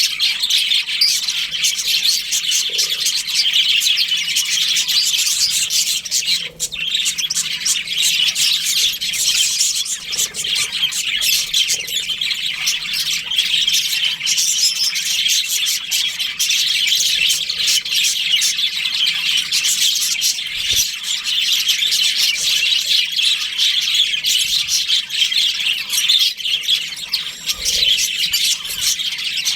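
A colony of budgerigars chattering and chirping without pause, many birds calling over one another.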